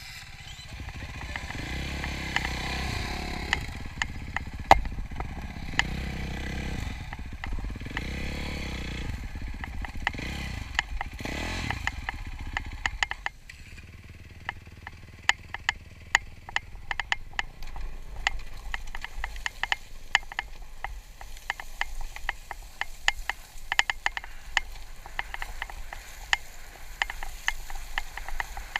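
KTM dirt bike engine running under throttle, the revs rising and falling, for about the first thirteen seconds. It then drops to a quieter low running as the bike rolls down loose coal shale, with many sharp crackles of stones under the tyres.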